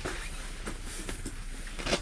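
Wind rumbling on the microphone in a snowstorm, with a few irregular short crunches or knocks, the loudest near the end.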